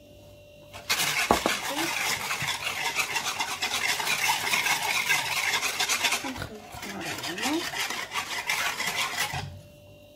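Wire balloon whisk beating a thin liquid batter in a wooden bowl: a fast, steady clatter of wire against wood with sloshing liquid. It starts about a second in, stops briefly past the middle, then resumes and stops shortly before the end.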